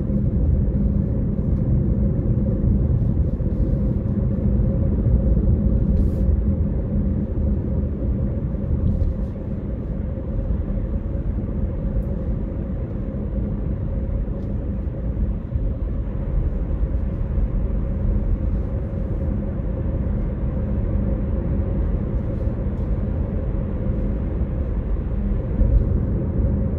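Car driving at a steady speed on a paved road: a constant low rumble of tyre and engine noise heard from inside the cabin.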